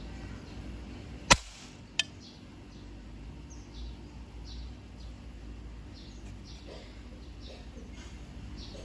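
One sharp shot from a DCobra airsoft gun about a second in, followed by a fainter sharp click about half a second later. Small birds chirp throughout.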